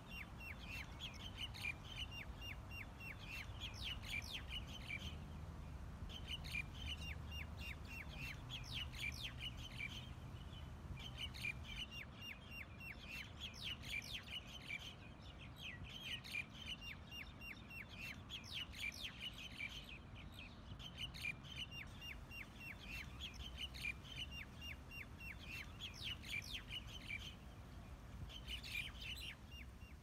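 A group of birds chattering in bouts of quick, repeated calls that come every few seconds, over a low steady rumble of fountain water.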